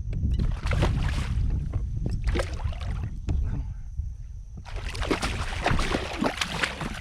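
Water splashing and knocking against a kayak as a hooked redfish is fought to the boat, loudest and most broken up from about two-thirds of the way in, over a steady low rumble.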